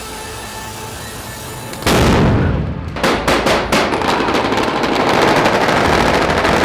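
Soft background music, then about two seconds in a single loud bang with a long fading tail, followed from about three seconds by rapid, sustained automatic gunfire.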